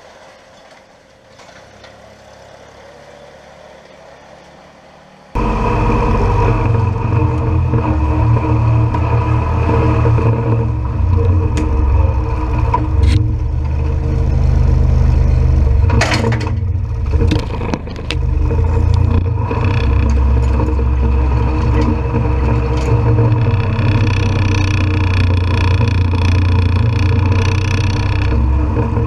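Massey Ferguson 1523 compact tractor's three-cylinder diesel engine running while it scrapes slurry. It is faint at first, then suddenly loud and close about five seconds in. A few short clatters come near the middle.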